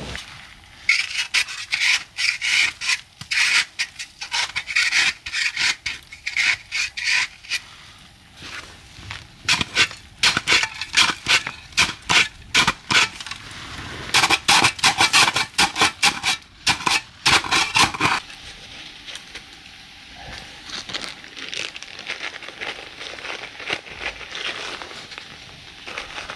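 A small snow shovel scraping and chopping into a bank of old spring snow, in quick runs of rough strokes. The busiest digging stops about two thirds of the way through, and quieter scuffing of hands working in the snow follows.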